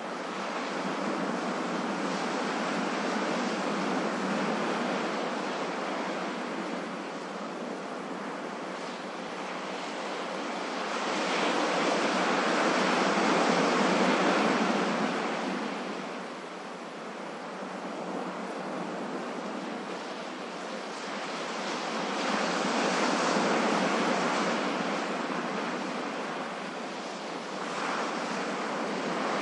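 Ocean waves washing onto a shore, a steady rush that swells and falls back in slow surges, three swells about ten seconds apart, the middle one loudest.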